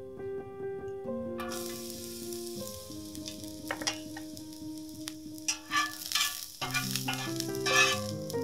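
Sliced garlic dropping into hot oil in a cast-iron skillet and sizzling, starting about a second and a half in. Later a metal slotted spatula scrapes and stirs the garlic against the pan.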